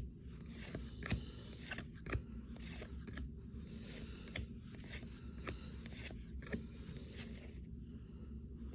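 Cardboard baseball cards being flipped through one at a time by hand, a short soft card-on-card snap about twice a second.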